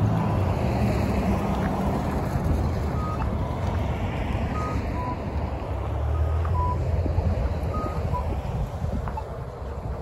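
Traffic driving past on a snowy street, with wind on the microphone and a heavier vehicle rumbling by about six seconds in. Over it an accessible pedestrian crossing signal repeats a short two-note falling beep, high then low, every second or two while the walk light is on.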